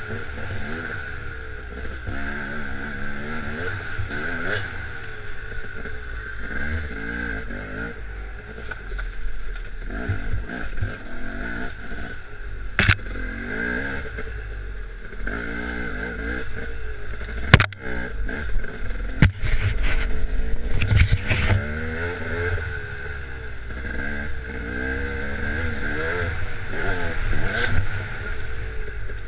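Dirt bike engine revving up and down over and over as it is ridden along a rough trail, with a sharp knock about a third of the way in and a louder one a few seconds later.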